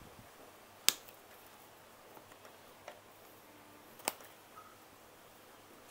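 A few short, sharp clicks, such as a tool or pot being handled: one about a second in, a fainter one near the middle, and the loudest about four seconds in.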